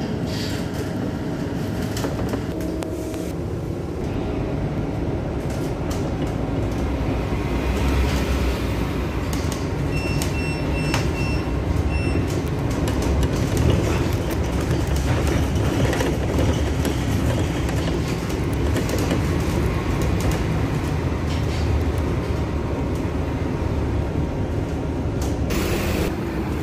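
Cabin noise of a city bus on the move: a steady engine and road rumble with rattling from the body. About ten seconds in, a short run of high beeps sounds.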